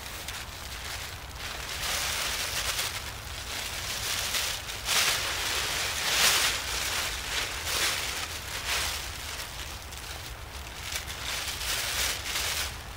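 Blue plastic tarp crinkling and rustling as it is shaken out and handled, in uneven swells, loudest about halfway through.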